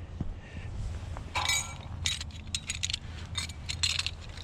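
Pieces of scrap steel clinking and rattling against each other as they are picked up and handled, a quick irregular run of sharp metallic clinks lasting a few seconds from about a second in.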